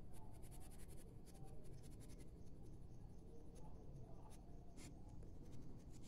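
Colored pencil scratching faintly on drawing paper in short, quick shading strokes that come in little clusters, over a steady low hum.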